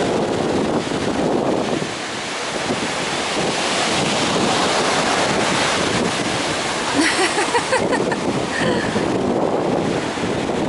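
Pacific Ocean surf washing in steadily, with wind buffeting the microphone. A brief high call rises over it about seven seconds in.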